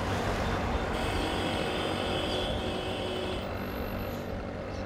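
An engine running steadily with a low hum, easing off slightly toward the end.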